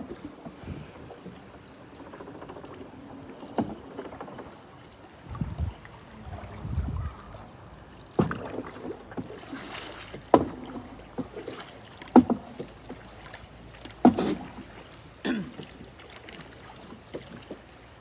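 Small boat moving through floodwater: water splashes and knocks against the hull, irregular sharp splashes every second or two over a low wash of water.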